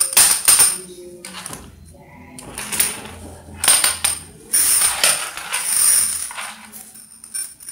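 Small metal padlock clattering and scraping across a concrete floor in several bursts, with a bright metallic jingle.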